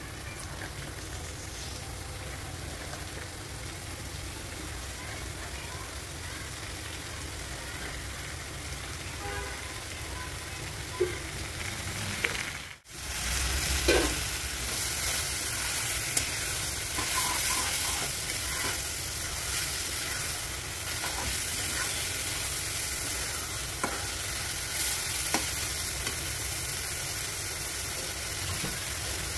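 Chopped Malabar spinach (pui shak) sizzling as it fries in a pan, a steady hiss that gets louder about halfway through. A metal spatula stirs the greens and knocks against the pan now and then, in a few sharp clicks.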